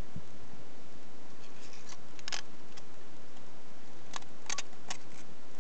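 Light clicks of metal parts being handled on a scooter's removed cylinder head: one about two seconds in and a quick cluster of four near the end, over a steady faint hiss.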